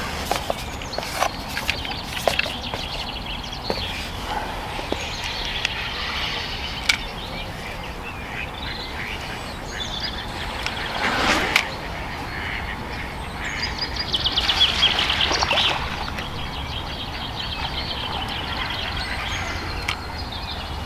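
Ducks quacking among other birds calling, with a louder, rapid run of calls around fourteen seconds in.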